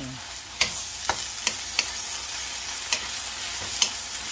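Food frying in a pan with a steady sizzle while it is stirred. A utensil knocks against the pan about six times at uneven intervals.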